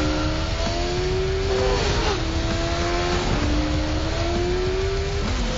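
Sport motorcycle engine accelerating hard. Its note climbs steadily and drops back twice, about two and three and a half seconds in, as it shifts up through the gears.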